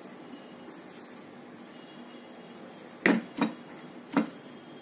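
Three sharp clicks from handling a screwdriver and wire connections: two close together about three seconds in, the third about a second later, over a faint steady hiss.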